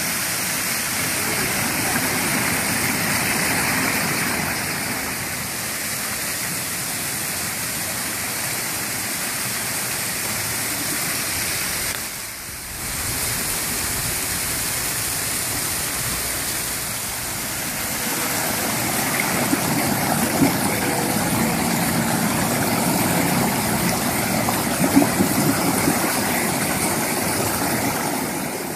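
Fountain water jets spraying over a bronze sculpture and splashing into the basin, a steady rushing of falling water that dips briefly about halfway through.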